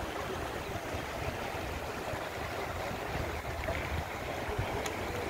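Shallow mountain stream running over rocks, a steady rush of water, with a low, uneven rumble of wind on the microphone.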